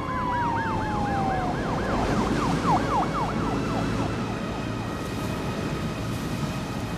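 Emergency vehicle siren yelping: a fast, repeated rise and fall in pitch that quickens about two and a half seconds in and fades out by about four seconds, with a single falling tone alongside it at the start.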